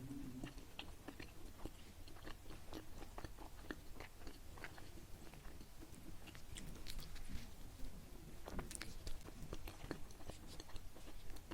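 A person chewing a soft, sticky qingtuan (green glutinous rice dumpling) close to the microphone, with many small, irregular wet mouth clicks and smacks.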